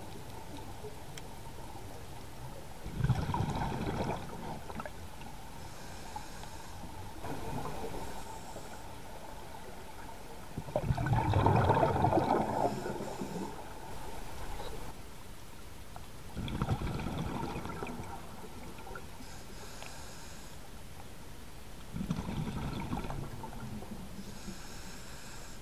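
Scuba diver breathing through a regulator underwater: bursts of exhaled bubbles gurgling about every five to six seconds, the loudest about eleven seconds in, with fainter hissing inhalations between.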